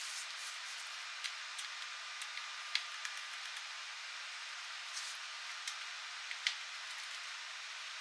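Small screwdriver and fingers handling the metal bottom panel of a Dell XPS 14z laptop: a few sharp, light metallic clicks and taps, scattered irregularly over a steady hiss.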